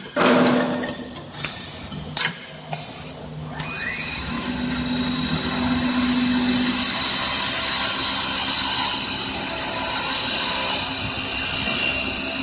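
CNC wood lathe with automatic feeding: a few sharp knocks in the first three seconds, then a motor whine rising in pitch at about four seconds, settling into a steady hissing run as the machine works the wood.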